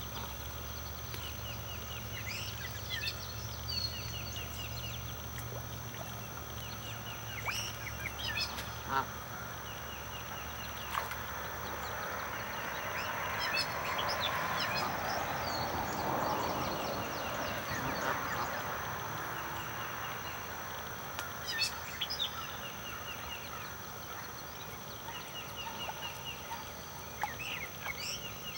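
Outdoor birdsong: small birds calling in short, quickly repeated chirp series over a steady high insect-like whine. Around the middle, a broad noise swells up and fades away over several seconds.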